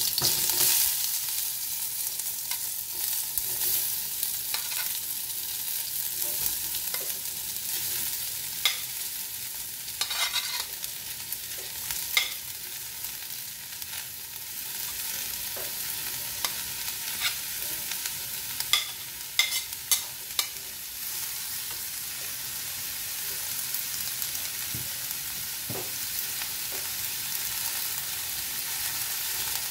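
Sliced onions sizzling in hot oil in a metal kadai, the sizzle starting suddenly as they are tipped in and then running as a steady hiss. A steel spoon clicks and scrapes against the pan now and then as the onions are stirred.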